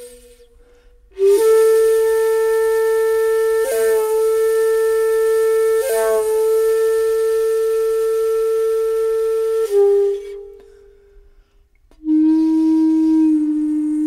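Solo flute playing slow, long held notes. One note is held about eight seconds with two quick flicks, then slides down and fades. After a short pause a lower note begins and is held.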